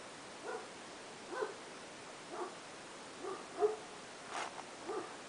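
A dog barking in short single barks, about one a second.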